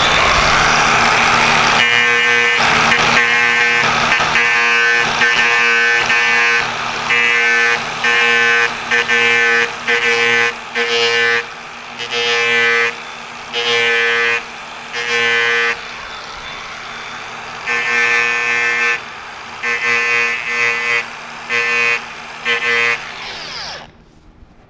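Makita angle grinder with a fine-grit sanding disc running, a steady whine that swells in a string of short bursts of about a second each as the disc is worked against the fiberglass edge of a dinghy centerboard. It shuts off and winds down near the end.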